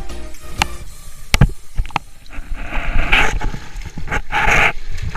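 Handling a cast net on dry grass: rustling and scraping of the mesh and grass as fish are worked free by hand. There are a few sharp taps early on and two louder rustling bursts, one in the middle and one near the end.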